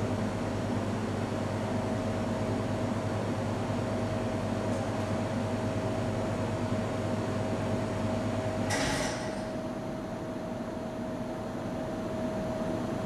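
Steady electrical hum and hiss with one constant mid-pitched tone. About nine seconds in, a brief burst of hiss lasting about half a second, after which the deeper hum drops away.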